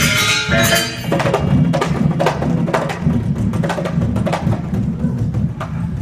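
Balinese gamelan music: the ringing of tuned bronze instruments stops about a second in, leaving a pair of kendang drums played by hand, with sharp slaps about twice a second over a low, steady drum tone.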